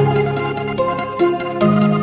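Background music: soft electronic chords changing about every half second over a light ticking beat.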